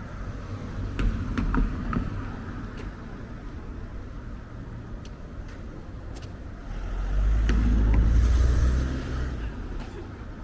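A car passing close by: a low rumble swells about two-thirds of the way in and fades away before the end. Underneath is steady street background noise, with a few sharp clicks near the start.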